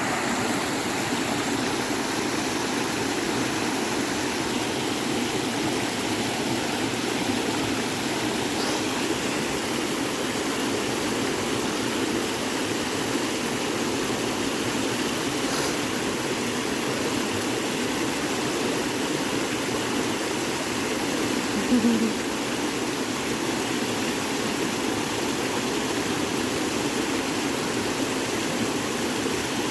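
Creek water rushing steadily after a good rain. A short, louder noise stands out about twenty-two seconds in.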